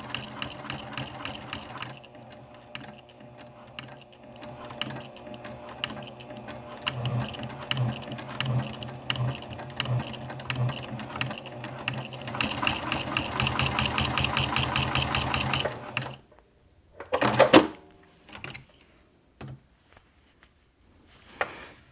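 Juki TL2010Q sewing machine topstitching with heavy Tex 69 thread through many layers of leather, foam and lining: it runs slowly with distinct needle strokes, then speeds up and gets louder before stopping about three-quarters of the way through. A short loud mechanical sound follows about a second later.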